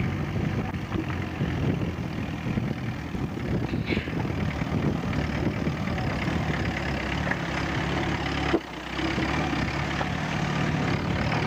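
4x4 off-road vehicle's engine running steadily, dropping away sharply for a moment about eight and a half seconds in before carrying on.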